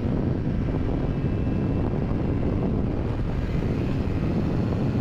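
Motorcycle riding at speed: steady wind rush on the microphone over the engine and road noise.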